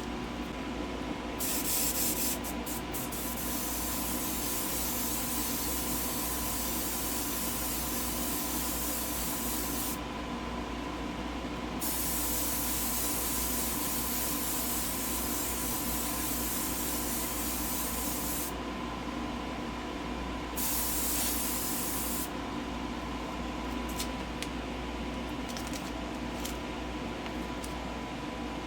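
Airbrush spraying paint in misting passes: a steady hiss that starts and stops, three longer passes followed by a few short spurts near the end, over a steady background hum.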